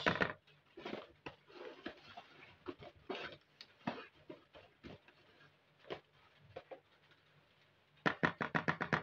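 A metal spoon scraping and knocking against a plastic mixing bowl while flour is scooped and measured into it, in irregular strokes. Near the end, quick stirring of the flour gives a fast run of about eight sharp strokes a second.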